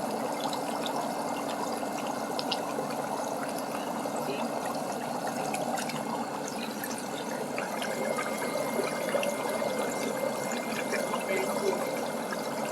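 Electric foot spa running, water churning and bubbling steadily in the basin, with a faint steady hum that stops about seven seconds in.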